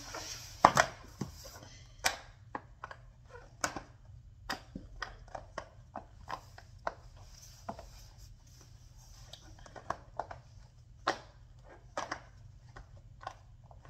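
Rainbow silicone pop-it fidget having its bubbles pressed one at a time, giving a string of irregular pops, a little over one a second.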